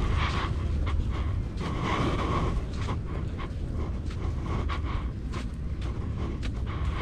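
Footfalls on sand and hard panting from someone moving fast, over a steady rumble of wind on the microphone.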